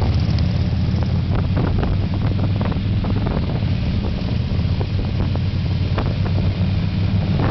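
Loud vehicle engine running steadily under way, with wind buffeting the microphone and a few short sharp knocks or pops.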